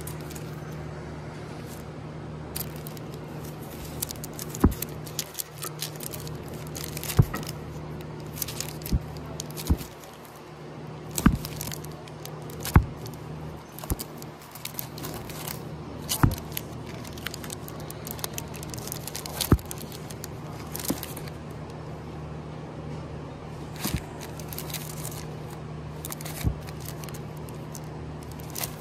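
Vinyl LPs in plastic outer sleeves being flipped through one by one in a plastic crate: the sleeves rustle and crinkle, and a sharp clack comes every second or two as each jacket drops against the next. A steady low hum runs underneath.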